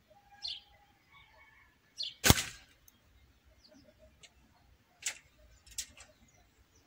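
A Gamo Big Cat 5.5 mm spring-piston air rifle firing once: a single sharp crack about two seconds in. Two fainter clicks follow near the end.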